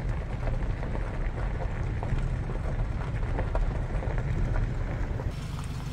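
Vehicle rolling slowly across a gravel-strewn dirt lot: a steady low rumble of engine and tyres with small crackles of gravel under the wheels.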